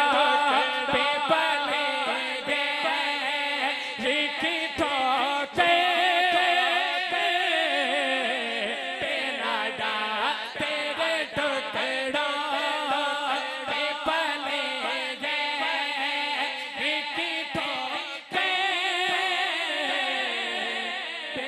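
A naat sung by a male voice, drawing out long, wavering melismatic notes with heavy vibrato and no clear words.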